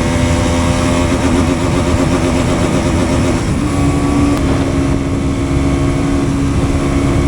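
Bajaj Pulsar NS200's single-cylinder engine running hard while riding. The note wavers for the first few seconds, then steps up slightly and holds steady.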